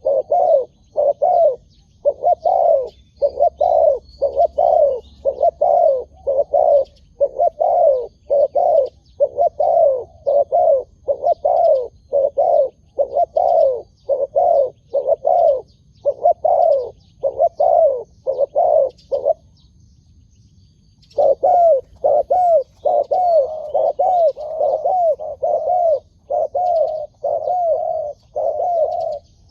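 Spotted doves cooing: a long, rapid run of short, low coo notes, about one to two a second, stopping for a couple of seconds about twenty seconds in and then going on. Faint high chirps of small birds can be heard behind them.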